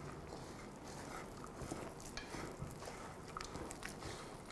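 Hand kneading a sticky biscotti dough of flour, eggs, chopped nuts and chocolate chips in a ceramic mixing bowl: faint squishing and rustling with a few small clicks.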